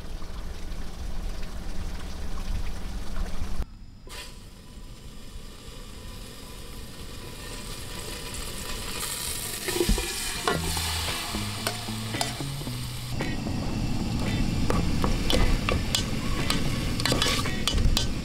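Chopped raw meat tipped from a small pot into a hot aluminium camping pot and stirred with a wooden spoon: sizzling that builds from about halfway through, with scrapes and sharp clicks of the spoon and meat against the pot. It opens with a low steady rumble that cuts off about four seconds in.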